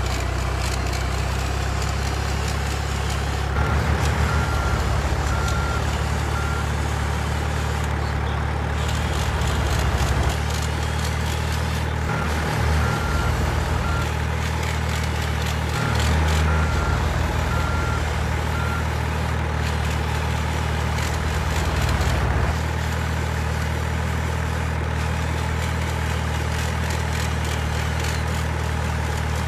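Low, steady truck-engine drone that swells louder in several spells, with rows of short evenly spaced beeps about four, twelve and sixteen seconds in.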